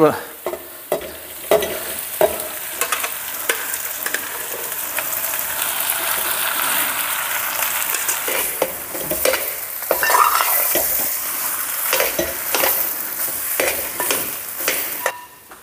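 Wooden spatula stirring and mashing boiled potato into onions frying in a pan, over a steady sizzle, with frequent short knocks and scrapes of the spatula against the pan. The sizzling falls away near the end.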